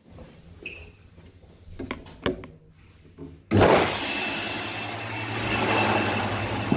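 Wall-mounted automatic hand dryer switching on abruptly about halfway in and running steadily. It makes a loud rush of air over a low motor hum and a thin high whistle. A few light footsteps and knocks come before it.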